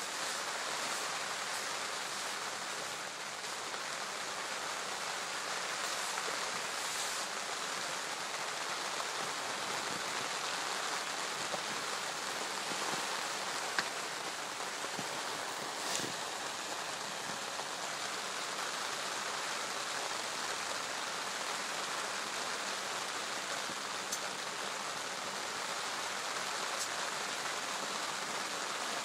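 Steady rain falling, an even hiss, with a few sharper drop taps.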